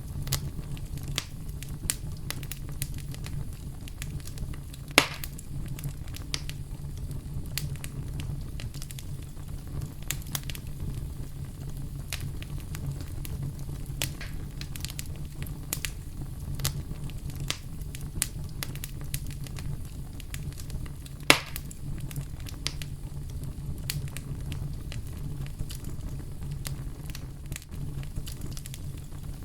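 Campfire crackling with frequent small snaps, over a steady deep rumble of brown noise. Two sharper, louder pops stand out, one about five seconds in and one about twenty-one seconds in.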